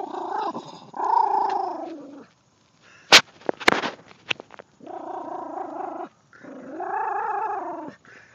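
Miniature pinscher whining in several long, drawn-out cries that rise and fall in pitch, with her head down in a hole she is digging under a fence after a mouse. Two sharp clicks come in the quiet gap midway.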